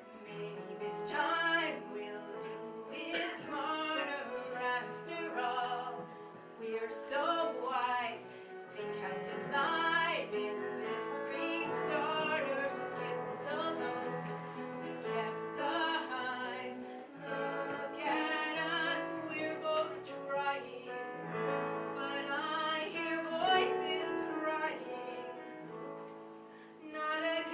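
A woman singing a cabaret song in a theatrical voice, with instrumental accompaniment.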